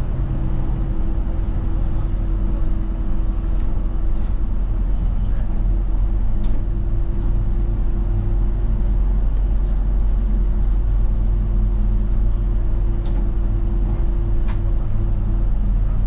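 A route bus's engine and drivetrain running steadily while the bus drives along, heard from inside the passenger cabin near the front, with a few faint clicks and rattles.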